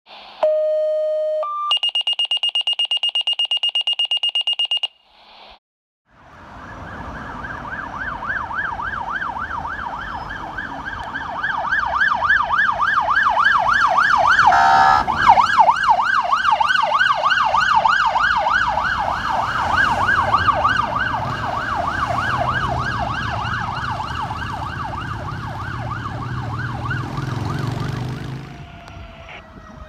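A few electronic beeps, low then high, and then a fast pulsing tone, followed by a fire-department SUV's electronic siren on a rapid yelp, sweeping up and down several times a second with engine rumble under it. It swells as the vehicle passes, breaks briefly about halfway, and fades out near the end.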